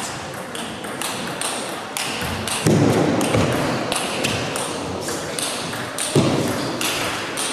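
Table tennis ball being hit back and forth in a fast rally: sharp pings off the paddles and table, several a second. Two louder low thumps come about three seconds in and again about six seconds in.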